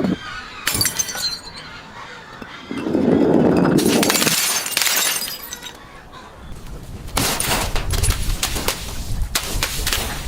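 Glass breaking and being crushed: sharp cracks near the start, a longer dense stretch of crunching from about three to five seconds in, then a run of cracks and crunches over the last few seconds.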